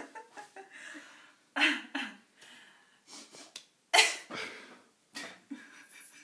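Two women laughing in short, breathy bursts of stifled laughter, the loudest one about four seconds in.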